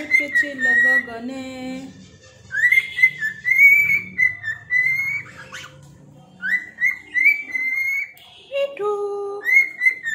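Cockatiel whistling runs of short, rising chirped notes, repeated in quick series with short pauses between runs.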